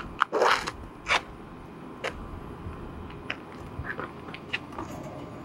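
Sneakers and a basketball on an outdoor asphalt court during one-on-one play: scattered sharp taps and scuffs, with a longer scrape about half a second in.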